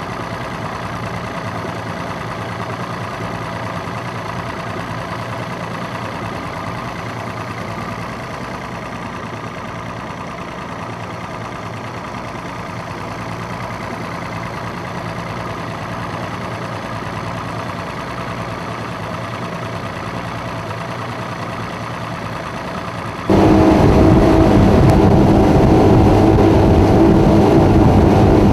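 Twin Mercury OptiMax two-stroke outboard engines idling steadily. Near the end the sound cuts suddenly to a much louder run at speed: the engines at high revs with the rush of water and wind.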